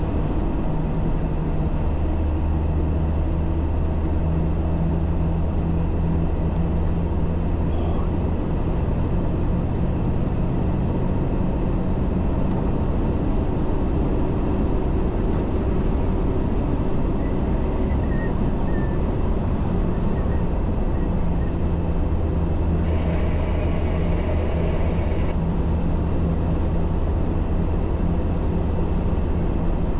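MAN 4x4 truck's diesel engine running while driving, a steady low drone over road noise. The deepest part of the drone eases off for several seconds midway, then returns.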